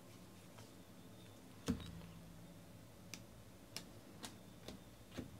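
Faint clicks and snaps of baseball trading cards being flicked off a hand-held stack one at a time. The loudest comes about a second and a half in, then softer ones follow about every half second.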